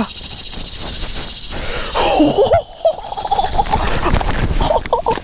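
A man's excited wordless yelps and shrieks, wavering in pitch, over loud rustling and bumping as he scrambles through grass after a landed fish.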